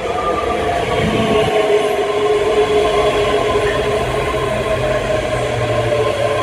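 ScotRail Class 385 electric multiple unit pulling slowly into the platform: a steady electric whine of several tones that slowly falls in pitch as the train slows, over the rumble of the passing coaches.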